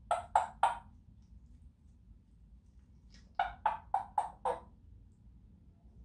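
African grey parrot making short, sharp clicking calls: three in quick succession at the start, then a quick run of about five some three seconds later.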